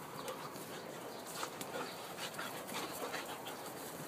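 A dog panting close by, with scattered small clicks.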